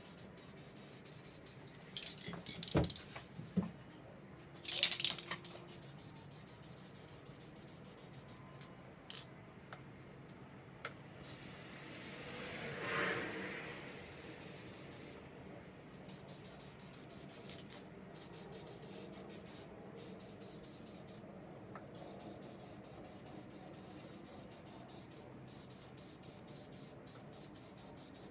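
Aerosol spray paint can hissing in many short bursts, with one longer spray in the middle and a few sharp clicks in the first few seconds.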